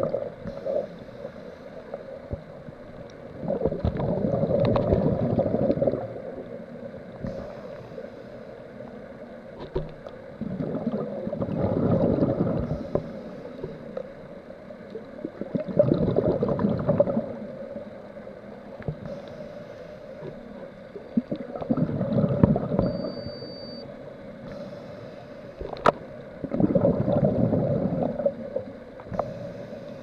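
Scuba regulator breathing heard underwater: bubbles from the diver's exhalations gurgle in five bursts of about two seconds each, roughly every five to six seconds.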